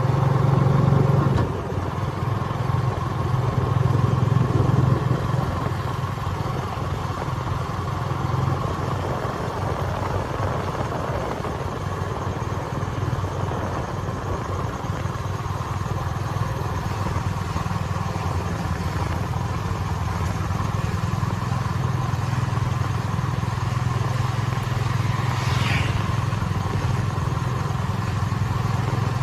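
A small engine running steadily, a little louder for the first few seconds, with a brief high chirp near the end.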